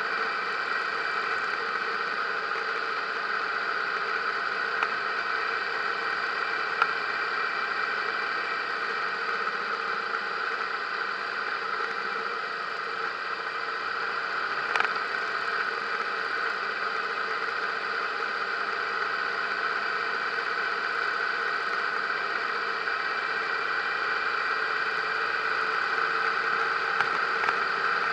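Motorcycle running steadily at cruising speed, engine and road noise picked up by a helmet-mounted camera, with a few brief clicks.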